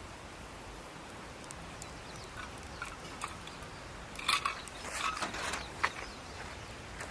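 Wood campfire crackling, with scattered small pops and a louder run of crackles about four seconds in.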